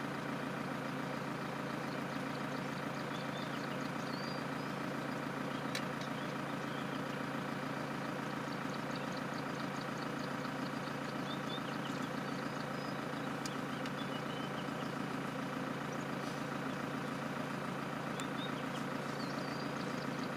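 Vehicle engine idling, a steady low hum that does not change, with faint short high chirps now and then.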